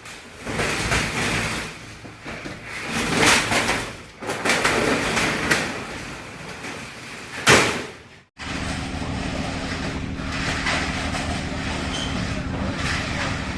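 Steel rolling door (shutter) moving, its slats rattling and scraping in uneven swells, with one loudest surge near the end. After a short break a steady mechanical hum follows.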